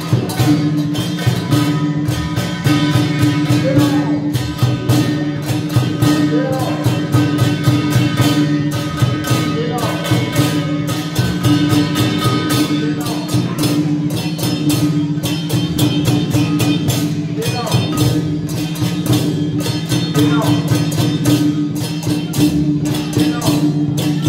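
Music with fast, dense percussion hits over a steady low held tone.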